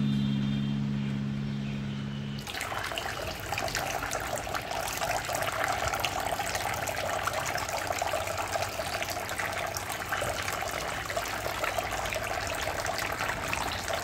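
Water from a small DIY plastic-bottle fountain, fed by a mini submersible pump, splashing and trickling steadily from its straw spouts into a tub of water and stones. It starts suddenly about two and a half seconds in, as the last notes of background music die away.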